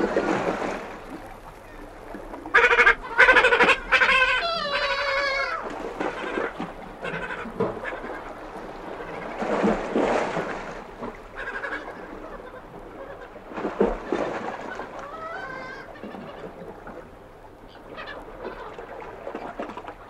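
Two black-legged kittiwakes calling at close range, loudest in a run of wavering calls about two to five seconds in, with shorter calls later. Sea washes over rocks in swells underneath.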